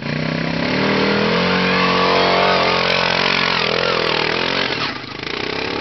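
XRBull Spaider 500 off-road buggy's engine revving hard under load as it climbs a steep dirt ramp, its pitch rising and falling, then easing off sharply near the end.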